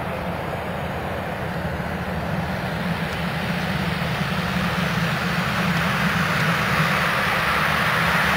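Turbine-powered Cessna Ag Husky agricultural plane's engine and propeller, a steady drone with a hiss on top, growing steadily louder as the plane comes head-on low over the ground.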